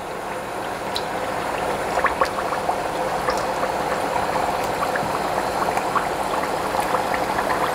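Shaped dough pieces deep-frying in hot oil in a wok: a steady sizzle scattered with many small pops and crackles, growing a little louder over the first couple of seconds as more pieces go into the oil.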